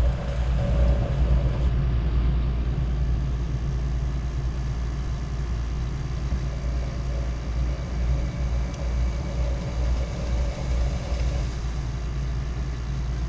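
Steady low hum of a rod-wrapping machine's electric motor turning a fishing rod while thread is wound onto a guide.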